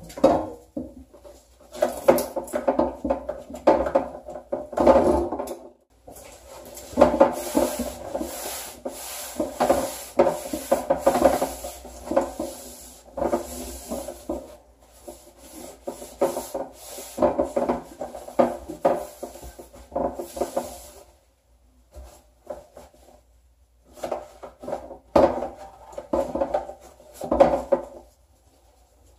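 A paper towel rubbing over a small shower bench as it is wiped down, in irregular scrubbing strokes with short pauses.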